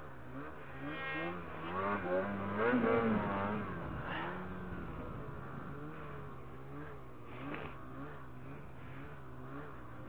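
Snowmobile engine running under throttle through powder, its pitch rising and falling as the rider works the throttle, loudest about two to three seconds in.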